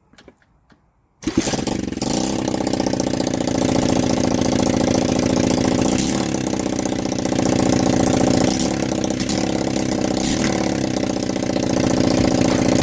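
Freshly rebuilt pit bike's four-stroke single-cylinder engine, on fresh oil, catches about a second in and then keeps running steadily.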